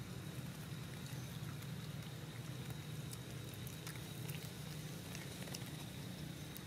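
Scattered small clicks and rustles of young macaques feeding on grass and moving through dry leaves close by, over a steady low hum.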